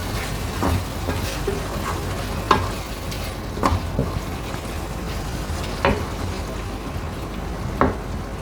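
Minced beef mixture sizzling in a frying pan while being stirred, with the utensil knocking against the pan about six times.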